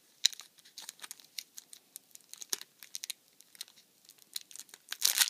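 Foil Yu-Gi-Oh booster pack wrapper crinkling and tearing as it is worked open by hand. It makes irregular sharp crackles, with a louder flurry near the end.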